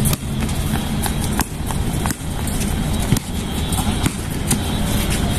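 Basketball bouncing and players' footsteps on an outdoor hard court, heard as irregular sharp thuds over a steady low background hum.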